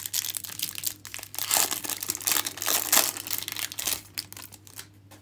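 Plastic wrapper of a trading card pack crinkling and tearing as it is pulled open by hand, in a run of crackling bursts that dies away near the end.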